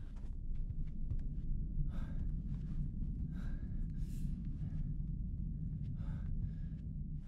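Horror-film ambience: a low, steady rumbling drone with a few short, breathy gasps over it, about two, three and a half, four and six seconds in.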